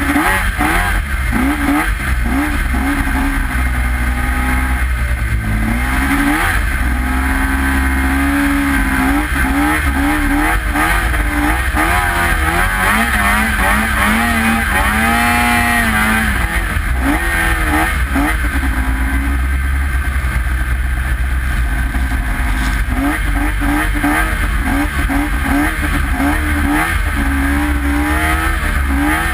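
Snowmobile engine running hard through deep snow, its pitch rising and falling again and again as the throttle is worked, over a steady low rumble.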